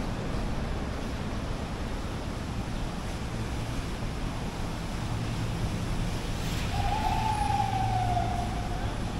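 Steady city street traffic noise with a constant low hum. About seven seconds in, a single drawn-out tone lasts about two seconds and falls slightly in pitch.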